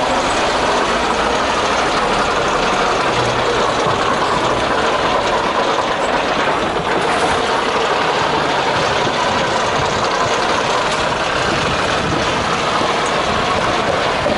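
Engine of a classic Dennis fire engine running steadily close by.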